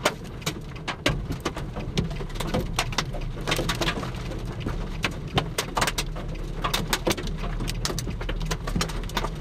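Raindrops hitting the roof and windshield of a car in irregular sharp ticks, over the steady low hum of the idling vehicle.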